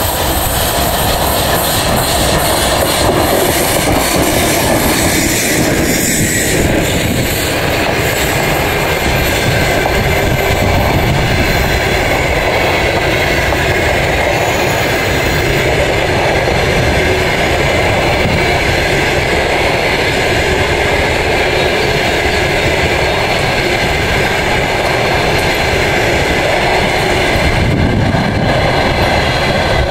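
Train passing close by: loud, steady running noise of wheels on rail.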